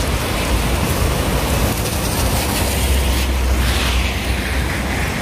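Steady rushing noise of a swollen, flooding river, with wind buffeting the microphone and adding a low rumble.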